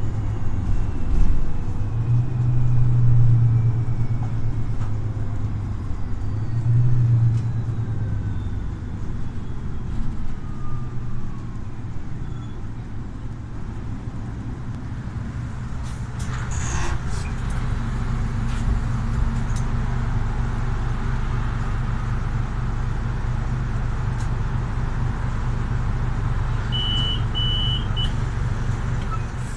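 Cabin sound of a Solaris Urbino 18 IV articulated bus with a Euro 6 diesel engine: a low engine drone with a thin whine falling slowly in pitch as the bus slows, then running steady. There is a short hiss about halfway through, and three short high beeps near the end.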